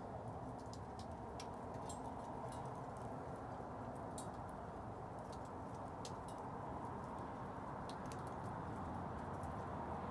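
Wood bonfire burning, with irregular sharp crackles and pops over a steady low rush of flame.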